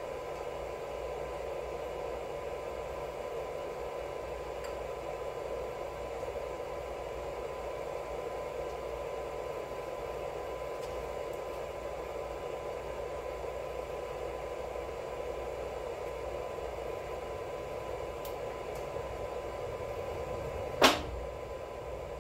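Steady mechanical hum, with one sharp clink near the end as small engine parts are handled.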